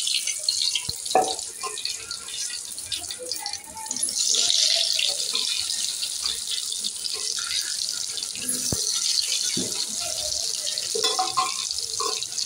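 Boiled potatoes sizzling as they fry in hot oil, a steady hiss that swells about four seconds in as more potatoes go into the pan. A few sharp clicks sound over the sizzle.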